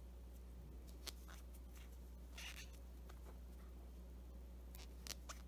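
Faint rustling and a few small clicks of a crochet hook pulling polyester cord through single crochet stitches, over a low steady hum.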